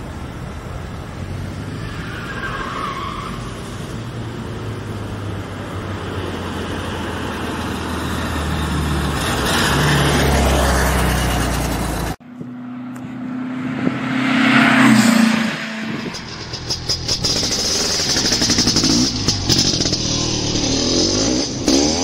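Car engine running and picking up speed, loudest around ten seconds in. The sound cuts off suddenly about twelve seconds in, and a second stretch of engine noise builds to a peak around fifteen seconds in.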